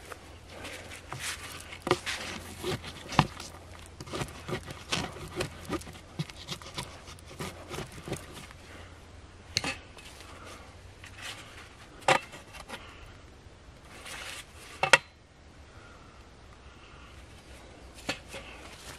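Gloved hands digging and scraping loose soil around the base of a wooden post: a quick run of irregular scrapes and knocks for the first several seconds, then a few sharper single knocks.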